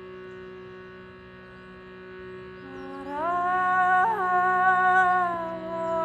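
Shrutibox drone held steady, with a woman's wordless singing voice coming in about halfway through: it glides up into a long held note with a slight waver and becomes the loudest sound.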